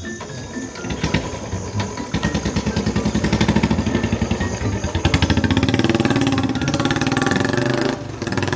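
Royal Enfield Bullet motorcycle's single-cylinder engine running with a fast, even beat as the bike rides off, growing louder about two seconds in and dropping away near the end.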